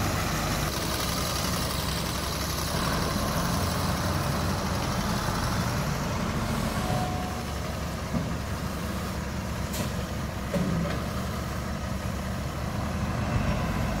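Heavy vehicle engine running steadily, with a sharp click about ten seconds in.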